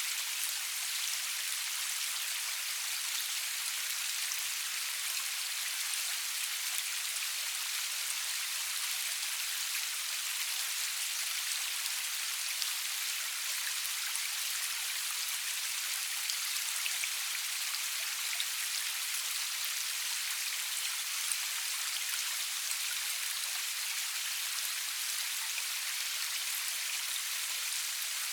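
Steady rain falling: an even, high hiss of drops with faint scattered ticks of individual drops landing.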